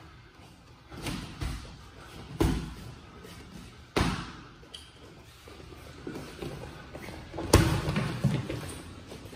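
Boxing gloves landing punches in sparring: scattered thuds, five of them sharp, the loudest about three-quarters through, with softer knocks between.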